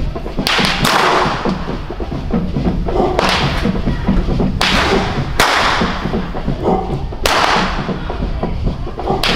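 Long rope carnival whips cracking sharply, about eight times, some in quick pairs, over the continuous pounding of the skin drums of a Guadeloupe carnival 'groupe à peau'.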